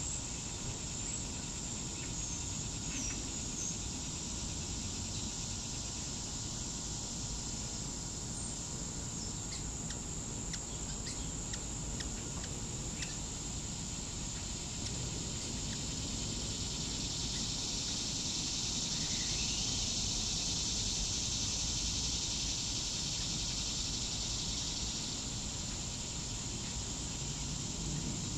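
Steady chorus of insects trilling high, one part swelling louder for several seconds past the middle, over a low rumble of background noise; a few faint short chirps come and go.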